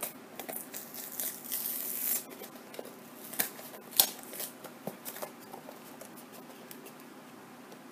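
Small cardboard blind box being opened by hand: a short tearing sound about a second in, then a few sharp clicks and taps as the flaps are pried open and the inner box slides out, the loudest click about four seconds in. The handling goes quieter near the end.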